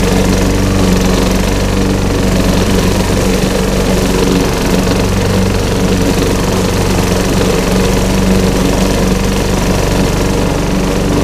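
Walk-behind lawn mower engine running steadily at a constant speed as the mower is pushed through a layer of fallen leaves.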